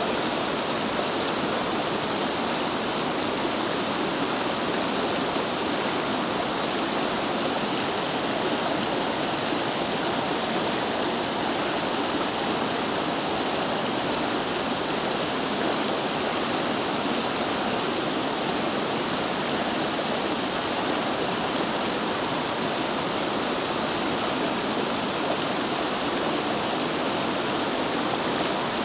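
Rushing mountain stream tumbling over boulders in white-water rapids, a steady, unbroken rush of water.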